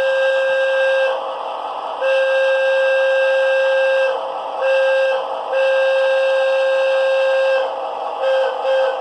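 Hancock 4700 air whistle sound from a Tsunami sound decoder, played through a model locomotive's small speaker. One steady hooting tone is blown in the long, long, short, long grade-crossing pattern, then two brief toots near the end.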